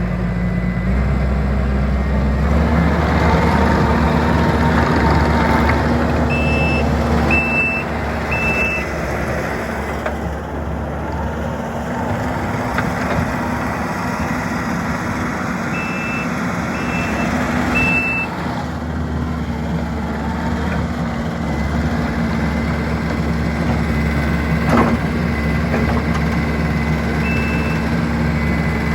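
Kubota SVL75-2 compact track loader's diesel engine running, its engine note shifting as it works. Its reverse alarm beeps in two short runs of about three beeps and once more near the end.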